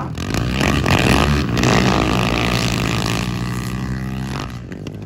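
Several racing quad bike (ATV) engines revving hard as the bikes tear past on a dirt track, then fading as they pull away near the end.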